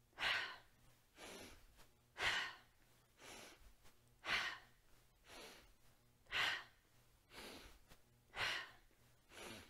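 A woman breathing hard in a steady rhythm, in through the nose and out through the mouth, alternating softer and louder breaths about one a second: a deliberate, oxygenating yoga breath timed to side-to-side twists.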